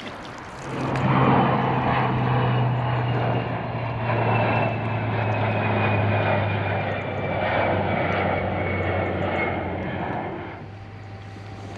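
An engine droning steadily with a faint high whine that slowly falls in pitch; it starts about a second in and stops suddenly near the end.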